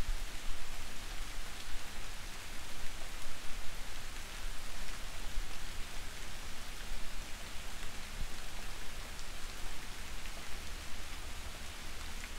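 Soft, steady rain falling: an even hiss with scattered faint drop ticks.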